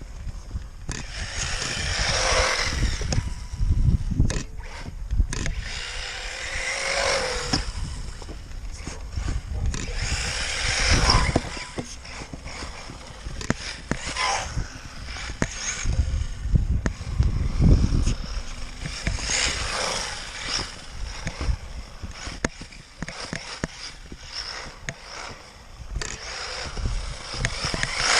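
1:8 scale RC buggy driving, heard from a camera mounted on it: its drive noise swells and fades every few seconds, with many sharp knocks and rattles from the chassis.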